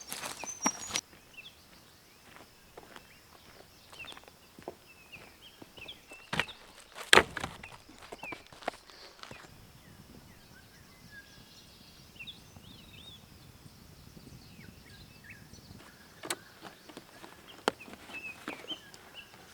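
Scattered knocks and clicks from handling things at camp, the loudest a sharp knock about seven seconds in, with small birds chirping between them.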